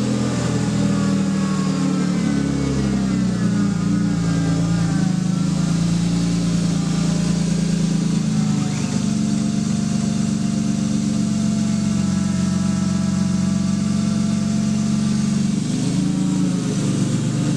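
A BMW E36 328i's stock inline-six engine idling steadily in neutral, its note shifting slightly a couple of times.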